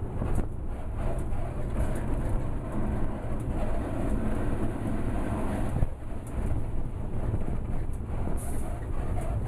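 Cab noise of a WAP-4 electric locomotive running along the line: a steady low rumble of wheels and running gear, with a hum that builds in the middle and breaks off sharply about six seconds in.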